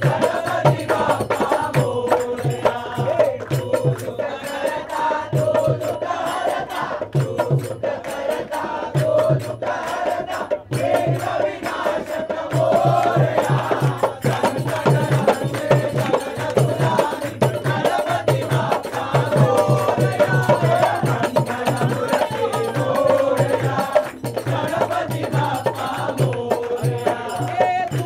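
Devotional aarti song: chanted singing over a steady, regular drum beat.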